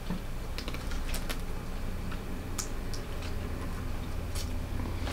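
Irregular small clicks and crackles of cooked blue crab shells being picked apart by hand.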